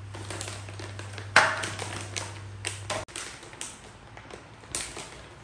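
A monkey handling a plastic snack packet and a plate on a tile floor: a run of sharp taps, knocks and crinkles, the loudest knock about a second and a half in.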